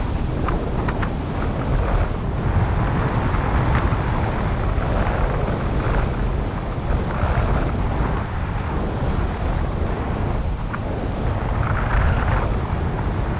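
Wind noise on the microphone of a camera flying with a paraglider: a steady low rush with a few brief crackles.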